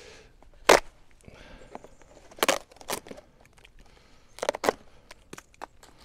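Blade of a Demko Shark Cub folding knife cutting and scraping into wet, frozen birch bark: a string of short, sharp crunching scrapes and cracks, the loudest about a second in, with more around two and a half to three seconds and a close pair near four and a half seconds.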